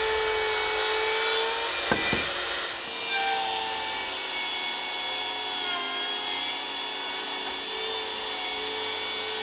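Portable jobsite table saw ripping a cedar board lengthwise: a steady motor-and-blade whine over the noise of the cut, with a couple of short knocks about two seconds in.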